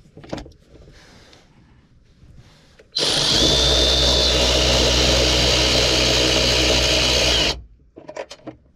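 Power tool running steadily for about four and a half seconds, starting about three seconds in and cutting off sharply, as it spins a socket on a long extension to back off a 10 mm nut. A few faint knocks of handling come before it.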